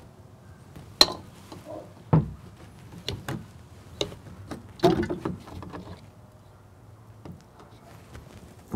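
PVC pipe, caps and glue cans being handled on a stone tabletop during solvent-welding: a string of sharp clicks and knocks, the loudest about a second in, a duller thump just after two seconds and a cluster of knocks near the five-second mark, then lighter ticks.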